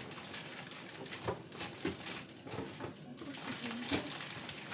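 A few light knocks and taps against a mixing bowl as chicken pieces are dredged in egg and flour, the loudest about four seconds in.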